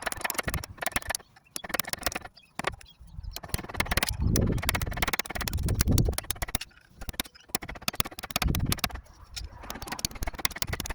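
Clay roof tiles being lifted and handled, a rapid run of sharp clicks and knocks as they clink against each other, with patches of low rumble.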